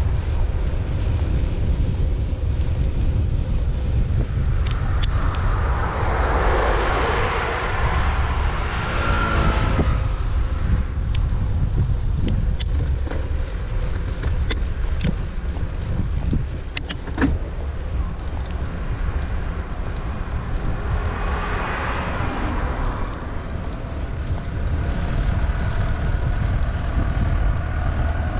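Steady low wind rumble on the microphone while moving along a road, with two cars passing, each swelling up and fading away, about a quarter of the way in and again about three quarters in. A handful of sharp clicks come around the middle.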